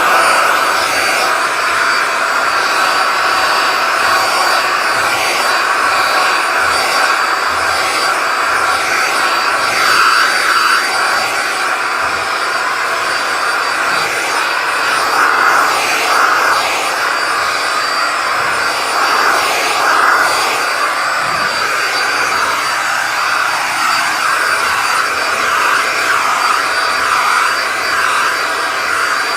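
Vacuum cleaner running steadily, a loud rush of air with a thin high whine over it.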